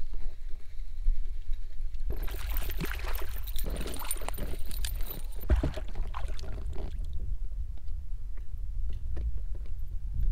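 Water splashing and sloshing at the side of a small boat as a hooked fish is brought in and netted. The splashing begins about two seconds in, lasts about five seconds and then gives way to a few scattered small splashes, all over a steady low rumble.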